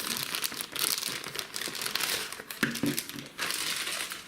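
Plastic packaging crinkling and rustling as it is handled, with an irregular run of crackles.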